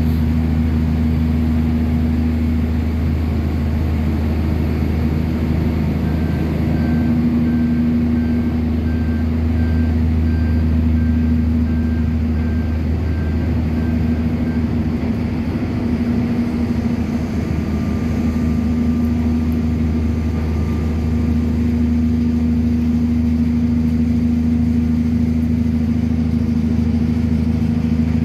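Mobile harbour crane's diesel power unit running with a steady low drone while it holds a suspended load. A faint short beep repeats about once a second for several seconds in the middle.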